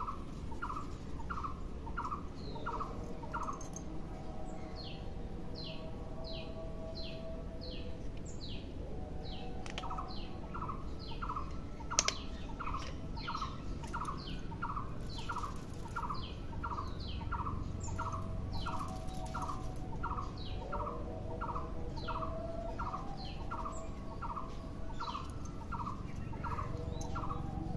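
Birds calling: a short chirp repeated about twice a second, with higher, falling chirps over it, against a steady low background noise. A single sharp click comes about twelve seconds in.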